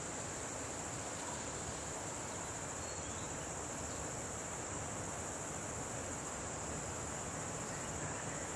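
Steady, high-pitched insect chorus, a continuous unbroken trill, over a soft even hiss of forest ambience.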